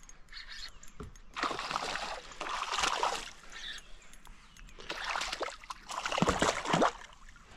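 A hooked bass splashing and thrashing at the surface beside a kayak as it is brought in and grabbed by hand. Irregular bursts of splashing come about a second and a half in, again around five seconds, and loudest near the end.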